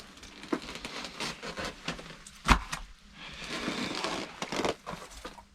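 Close handling noises: a run of light clicks, knocks and scrapes, with one sharp knock about two and a half seconds in and a stretch of rustling scraping near the end.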